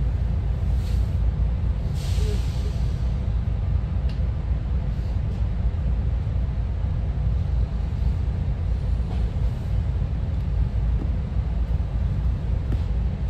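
Steady low rumble of a SEPTA Regional Rail commuter train in motion, with a brief hiss about two seconds in.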